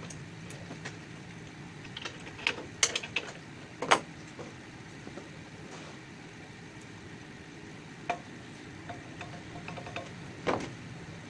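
Hammer tapping on the steel parts of a table saw to shift its alignment forward or back for a square cut. A few sharp knocks come close together about three to four seconds in, then single ones near eight and ten seconds, over a low steady hum.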